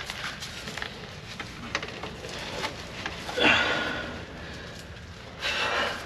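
Heavy breathy exhales from a person straining, the loudest about halfway through and another near the end, amid scattered scrapes and small knocks of someone working through a cramped space.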